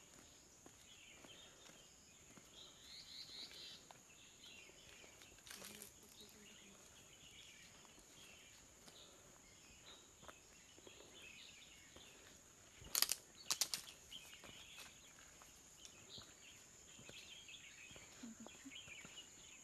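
Faint natural ambience: scattered small bird chirps over a steady high insect hum. A short cluster of sharp clicks comes about thirteen seconds in.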